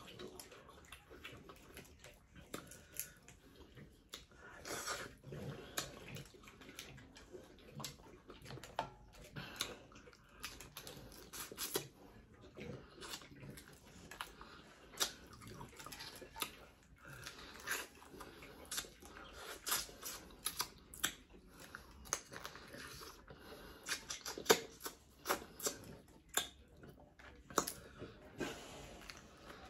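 Eating Dungeness crab: irregular small clicks and crackles of crab shell being cracked and picked apart, with chewing.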